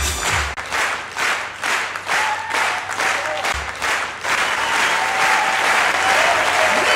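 Audience applause for a finished juggling act: clapping in an even rhythm, about three claps a second, over the last bass notes of the act's music. About four seconds in it breaks into louder, continuous applause.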